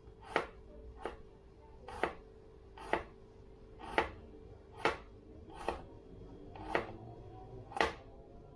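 Kitchen knife slicing garlic cloves thin on a plastic cutting board: nine sharp taps of the blade on the board, about one a second.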